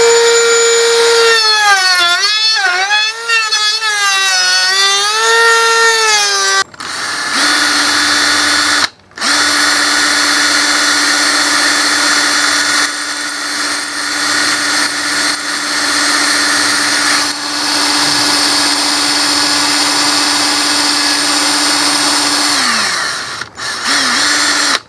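Ryobi cordless drill boring a bolt hole through the wooden arm of a frame saw. For the first several seconds the motor's pitch dips and wavers under load. After a short break it runs at a steady, lower pitch for about fifteen seconds, stopping once briefly, and winds down near the end.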